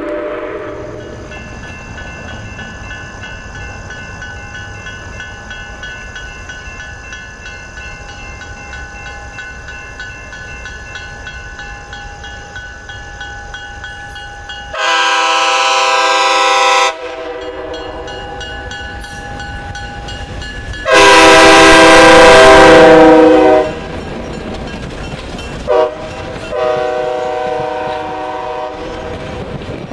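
Nathan K5LA multi-chime air horn on an Alco FPA-4 diesel locomotive sounding the grade-crossing pattern: a long blast, a longer one, a short toot and a final long blast. Between the blasts a steady lower rumble of the approaching train runs underneath.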